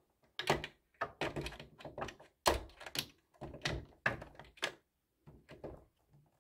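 Irregular knocks and clicks as a cordless drill with a long extension bit is handled and fitted onto a screw deep inside a hollow plastic meat-grinder housing, before the drill is run.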